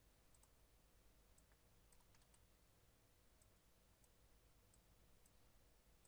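Near silence with a dozen or so faint, scattered computer mouse clicks.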